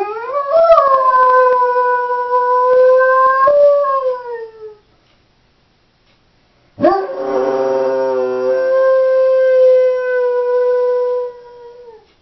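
Doberman howling in two long, steady-pitched howls separated by a pause of about two seconds, each falling off at its end; she howls like this when left home alone.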